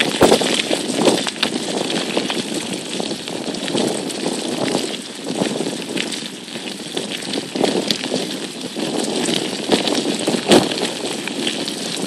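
Bicycle rolling along a forest track behind two pulling Alaskan Malamutes: steady rolling and rattling noise with frequent small clicks and knocks.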